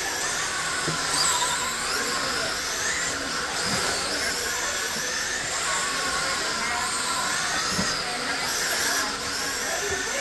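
Several radio-controlled race cars' electric motors whining at once, their pitches repeatedly sweeping up and falling back as the cars accelerate down the straights and ease off into the turns.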